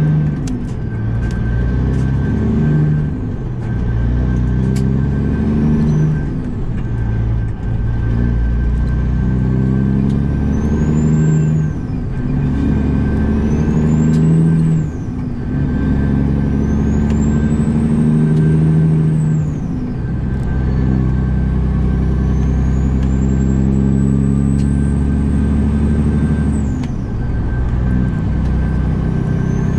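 Caterpillar diesel of a Kenworth W900L semi truck pulling away and accelerating up through the gears, heard from inside the cab. Its engine note climbs and falls back with each of several upshifts, and a high turbo whistle rises with each pull and drops at each shift.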